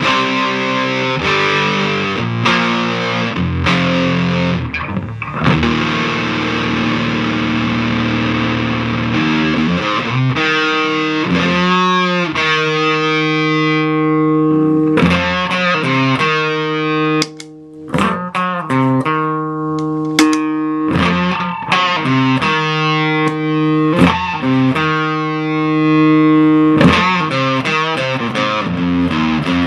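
Hi-Tone DR504JP bass with a Dan Armstrong Sustain Treble double-coil pickup, played through a DAM Ezekiel 25:17 full-frequency overdrive pedal: sustained, distorted bass notes and riffs. About halfway through, as the pedal's knobs are turned, the fizz on top fades and the notes sound smoother, with a brief drop-out soon after.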